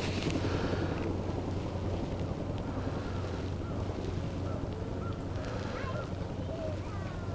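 Steady low wind rumble on the microphone, with a few faint bird calls scattered through.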